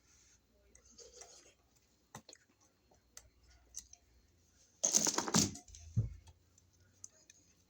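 Hand tools and outlet hardware being handled at an electrical box: scattered light clicks, then a brief metallic clatter about five seconds in, followed by a dull thump.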